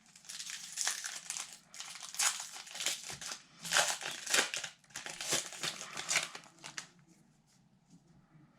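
Plastic-foil wrapper of an O-Pee-Chee hockey card pack crinkling in a run of uneven bursts as it is torn open by hand, going quiet about seven seconds in.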